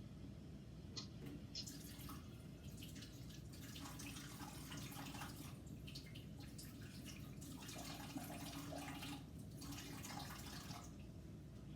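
Kitchen faucet running faintly and unevenly, with drips, as water is measured out by the tablespoon; it stops about a second before the end.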